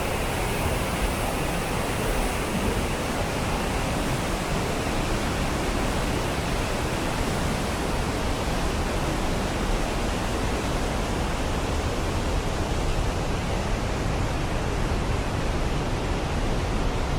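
Waterfall on the Spokane River: a steady, unbroken rush of falling water.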